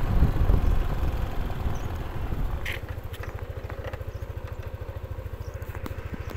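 Motorcycle moving slowly with wind rumbling on the microphone; about three seconds in the rumble drops away and the engine idles with an even, low putter.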